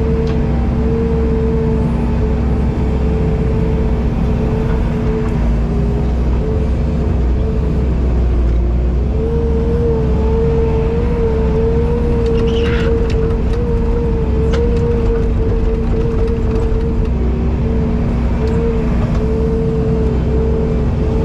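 Diesel construction machine running steadily under load, a low engine rumble with a steady hydraulic whine that wavers slightly in pitch, and a few light knocks partway through.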